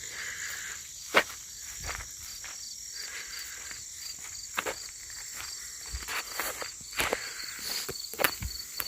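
Footsteps walking over rough ground, a series of sharp crunching steps, the loudest about a second in, over insects chirping steadily in the background in a high, rapidly pulsing trill.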